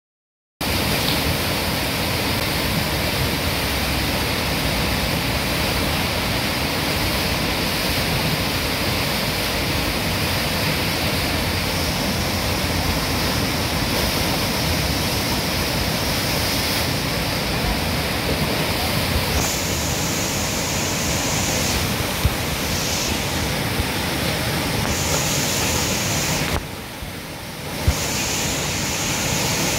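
Steady rushing roar of fast river water breaking in a large standing surf wave, swollen by floodwater. Near the end the sound briefly drops away, with a couple of sharp clicks.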